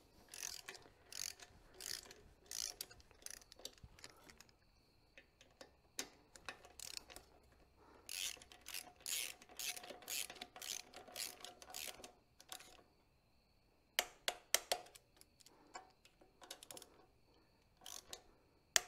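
Socket ratchet clicking in runs of quick strokes as it drives quarter-inch Allen bolts down, with short pauses between runs and a few louder, sharper clicks about three-quarters of the way through.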